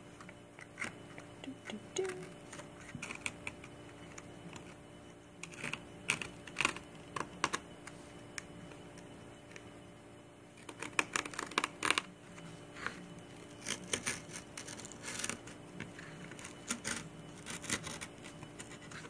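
X-Acto craft knife blade cutting through stretched canvas: irregular scratchy clicks and short rasps in uneven bursts, over a faint steady hum.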